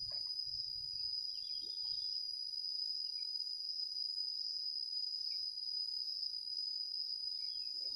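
Steady high-pitched insect chorus, a continuous trill of crickets that does not change.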